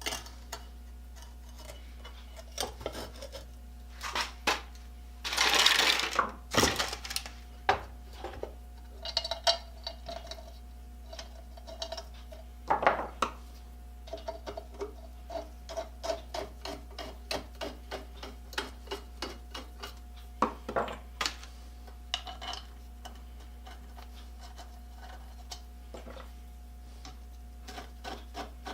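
Metal parts of a hand-crank bench grinder clinking and clicking as they are handled on the bench, with a brief scraping rush about six seconds in and a run of evenly spaced clicks midway, over a steady low hum.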